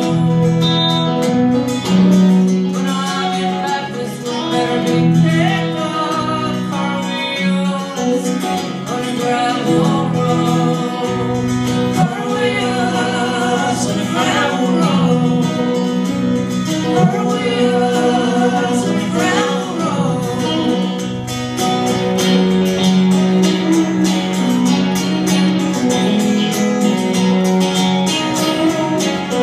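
Live song with singing over strummed acoustic guitar and electric guitar.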